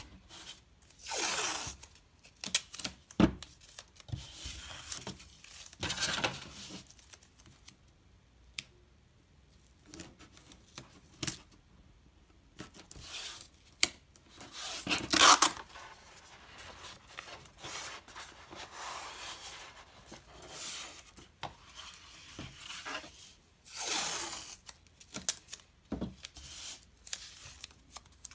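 Blue painter's tape being pulled off the roll in several long rips and pressed down along the edges of paper, with a few light knocks in between.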